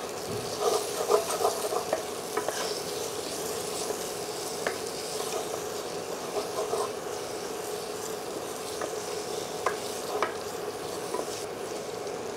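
A wooden spatula stirs and scrapes thick fried onion-masala against the metal base of a pressure cooker over a steady sizzle, with a few sharp clicks of the spatula on the pot. The masala is well fried and beginning to stick to the bottom of the pan.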